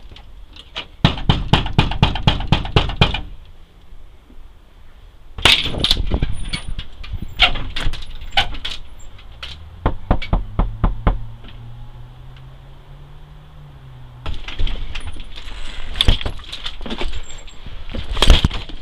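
Hard banging on a front door: a fast run of about a dozen blows, then scattered heavier strikes, and near the end a long run of loud blows as the door is forced in.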